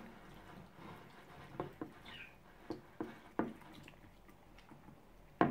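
Hands kneading and squeezing slime in a glass bowl: soft squishing with a handful of short sticky pops and clicks at uneven intervals, the loudest near the end.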